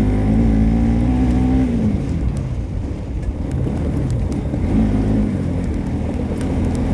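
Motorcycle engine pulling on a rough off-road track, its pitch easing off about two seconds in and picking up again near five seconds, over a low rumble with scattered clicks and knocks from the bumpy ride.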